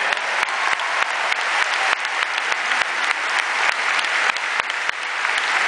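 Large audience applauding, a dense, steady clapping that grows louder near the end.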